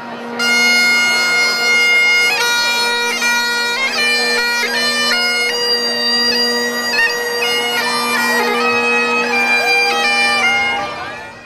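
Great Highland bagpipe playing a march tune: the chanter melody steps from note to note over the steady hum of the drones. The piping fades out near the end.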